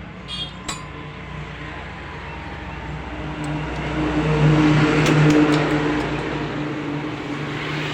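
An engine running at a steady speed, its hum swelling louder around the middle and then easing back. There are a couple of sharp metallic clinks near the start.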